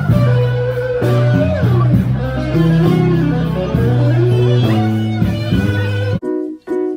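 Background music with sustained notes over a steady bass line. A little after six seconds in it changes to short, separated notes with brief gaps between them.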